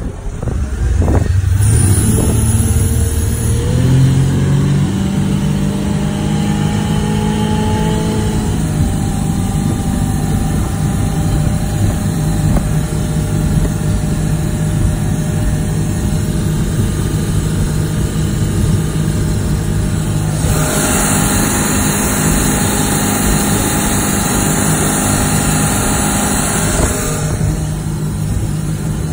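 Supra boat's inboard engine running. It picks up sharply about a second in, climbs in pitch over the next few seconds, then runs steadily. A louder hiss joins it for several seconds in the last third.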